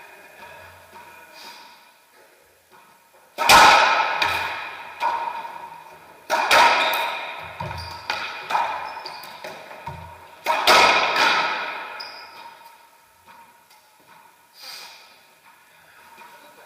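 Racquetball rally: the hollow rubber ball smacking off racquets and the court's walls, about nine sharp hits in quick succession, each ringing on with a long echo in the enclosed court.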